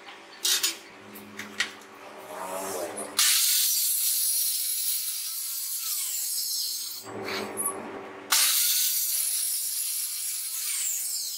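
Circular saw cutting plywood along a straight guide in two loud passes, each starting abruptly, about 3 and 8 seconds in. Before the first cut there are a few light taps and clicks from marking the board with a marker and steel square.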